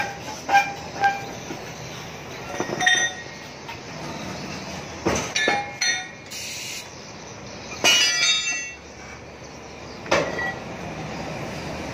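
Metal clanks and clinks as a steel-rimmed bus wheel is handled and pushed onto a wheel balancer's shaft, the rim knocking against the machine. About eight sharp knocks that ring briefly, the longest ringing clatter a little before the eight-second mark, over a steady background hiss.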